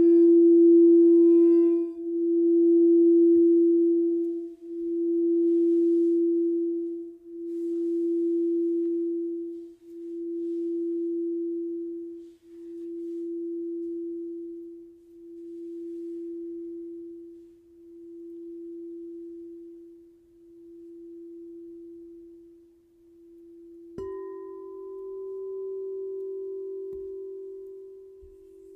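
A singing bowl ringing with one sustained tone that swells and fades in a slow pulse about every two and a half seconds, dying away gradually. About 24 seconds in, a bowl is struck again, starting a slightly higher ringing note.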